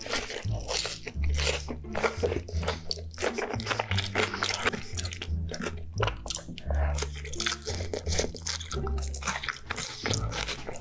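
Close-up eating sounds of a man stuffing handfuls of saucy, cheese-covered animal style fries into his mouth: biting and wet chewing with frequent crunches.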